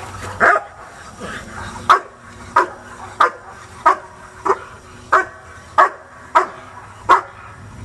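Young German Shepherd barking at a protection helper while held back on a line, a steady run of about ten barks, roughly one every two-thirds of a second: agitation barking in early protection training.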